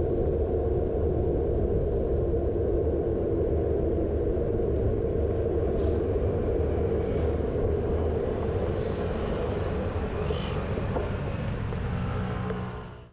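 Steady rumble of riding a bicycle through city traffic: tyre and wind noise on the bike's camera microphone, with cars passing in the lanes alongside. A brief hiss comes about ten seconds in, and the sound fades out at the very end.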